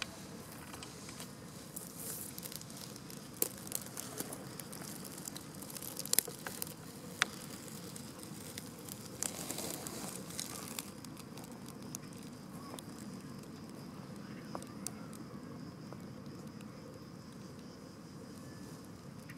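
Faint outdoor background with scattered sharp clicks and crackles, and a denser spell of rustling about nine to eleven seconds in.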